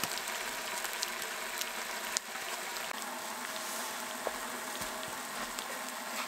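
Food sizzling in a frying pan: a steady hiss with a few scattered small pops.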